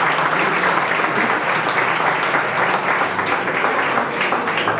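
Crowd of dinner guests applauding, many hands clapping steadily.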